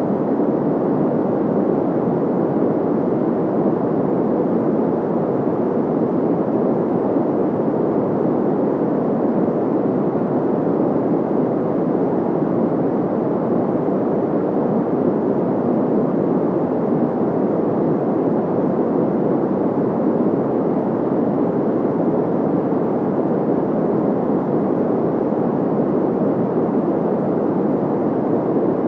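Steady synthetic white noise: an even, unbroken hiss, fullest in the low-middle range and soft in the treble.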